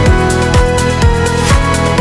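Electronic background music with a steady kick drum, about two beats a second.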